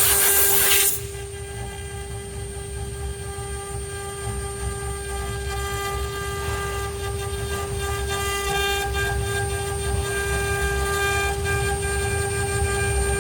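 ART1325 CNC router running, its spindle giving a steady whine with a low rumble beneath. A loud hiss over the first second cuts off suddenly.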